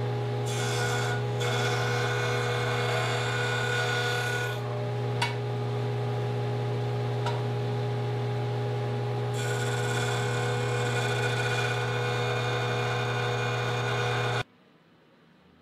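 Jointer running with a steady motor hum while a wooden dowel is fed against its cutterhead to cut glue slots, a rasping cut heard over the hum for the first few seconds and again from about nine seconds in. The whole sound cuts off suddenly near the end.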